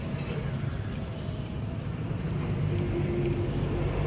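An engine running steadily with a low, even hum that grows slightly louder in the second half.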